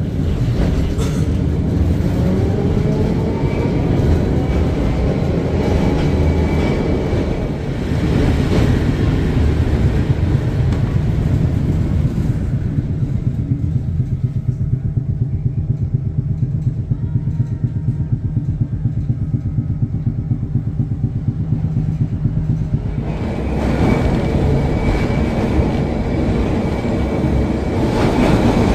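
ATM Class 1500 vintage tram running on its rails: a whine rising in pitch over the first few seconds as it picks up speed, over a steady low rumble.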